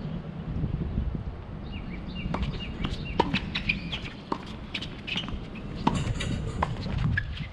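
Tennis rally on a hard court: a string of sharp pops from the ball being struck by rackets and bouncing, the loudest about three seconds in and about six seconds in. Birds chirp in the background.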